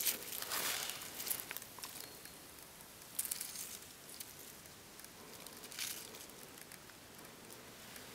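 Dry fallen leaves rustling in a few short bursts: the longest in the first second and a half, and shorter ones around three seconds and just before six seconds, with quiet rustle between.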